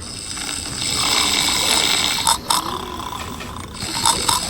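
Cartoon snoring sound effect, with a few short sharp clicks about halfway through and again near the end.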